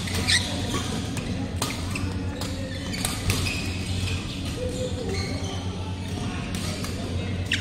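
Badminton rally: rackets striking the shuttlecock with a string of sharp pops, and shoes squeaking briefly on the court floor near the start and end, over a steady low hum.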